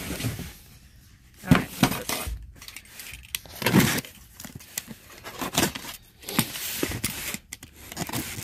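Box cutter slitting the packing tape on a cardboard box, with irregular scrapes and sharp clicks as the blade and the box are handled.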